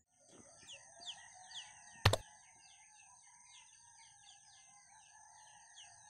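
Birds chirping outdoors in short falling notes, several a second, over a steady high-pitched ringing tone. A single sharp click about two seconds in is the loudest sound.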